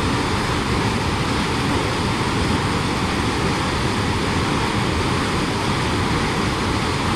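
Steady, loud rush of a fast mountain stream cascading over rocks.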